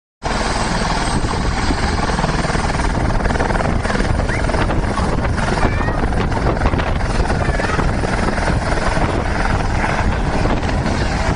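Light helicopter hovering and manoeuvring low over the ground, its rotor and engine making a loud, steady noise close by. The noise starts abruptly.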